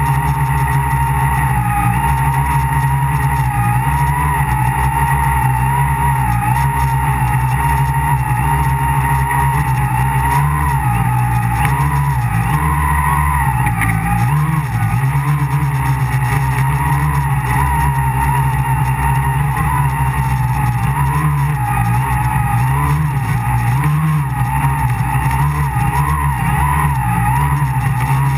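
Tricopter's three brushless motors and propellers whining steadily, heard up close from on board; the pitch wavers up and down with throttle corrections, more so in the second half.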